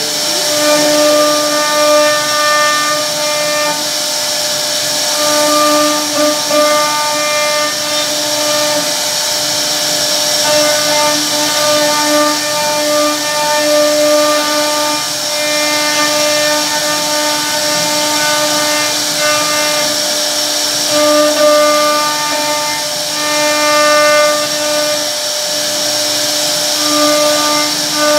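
CNC router spindle whining at a steady pitch as its bit carves a wooden door panel, over a noisy cutting hiss. The upper notes of the whine drop out and come back every few seconds.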